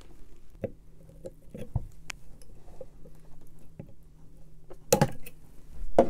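Scattered light clicks and scrapes of hands working the copper wire leads on a washing machine motor's plastic stator, with one sharper click about five seconds in.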